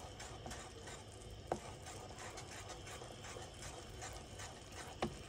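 Faint bubbling of thick strawberry-cranberry jam in a stockpot as it nears a rolling boil, stirred with a wooden spoon, with two light knocks about a second and a half in and near the end.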